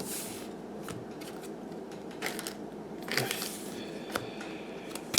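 1989 Donruss baseball cards being handled and slid through a stack by hand, about five brief soft rustles and flicks of cardboard.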